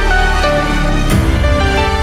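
Electronic background music with held synth notes; a deep bass sound comes in about a second in.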